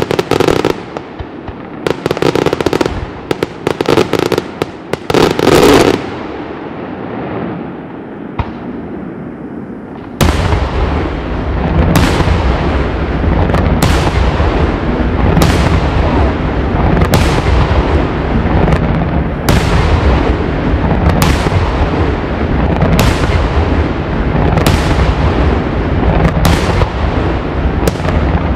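Daytime fireworks exploding. For the first several seconds there are clustered crackling bursts and bangs, then a quieter spell. About ten seconds in, a continuous rumbling barrage of detonations starts, with a sharp bang a little more often than once a second.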